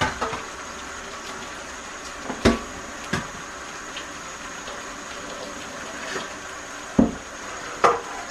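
Kitchen tap running steadily into a stainless steel sink while dishes are washed, with about five knocks of metal dishes against the sink, the loudest about two and a half seconds in and near the end.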